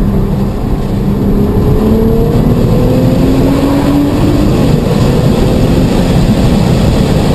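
Car engine accelerating under heavy road and wind noise, heard from inside the car: the engine note rises steadily in pitch for a few seconds, then holds level.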